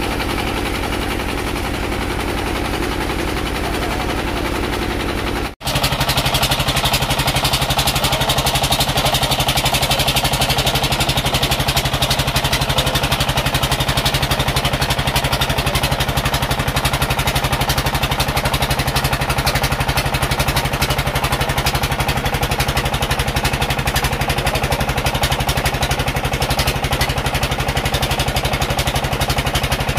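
Boat engine running steadily with a fast, even chugging beat. It drops out for an instant about five seconds in, then carries on slightly louder.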